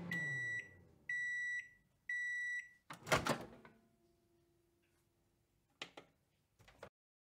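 Microwave oven finishing its cycle: the running hum winds down, three steady high beeps about a second apart signal that it is done, then the door pops open with a loud clunk. Two softer knocks follow near the end.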